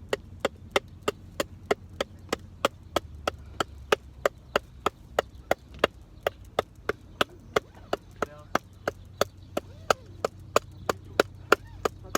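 Rapid, evenly spaced wooden knocks, about three a second: a baton tapping the spine of a knife driven through wood to split it (batoning).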